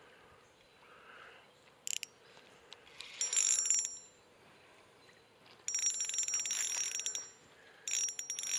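Spinning reel's drag clicking in three fast, ringing bursts as a hooked bass pulls line out against it.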